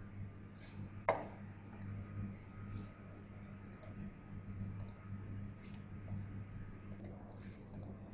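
Faint computer mouse clicks scattered over a steady low electrical hum, with one sharper click about a second in.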